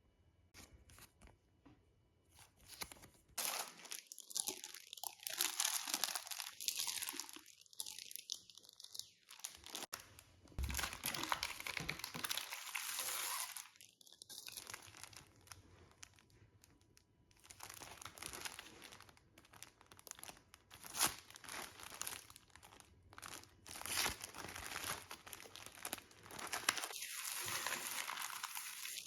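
Packaging crinkling, crunching and tearing as it is handled and opened. A few small clicks come first, then the crinkling comes in spells a few seconds long with short pauses.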